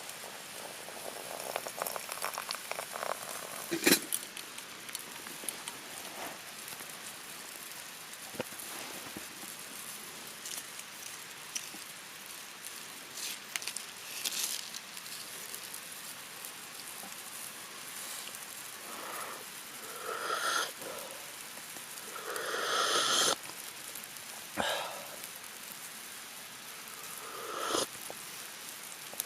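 Campfire crackling with scattered sharp pops, over the steady rush of a mountain stream. A few louder rustling swells come around twenty and twenty-three seconds in.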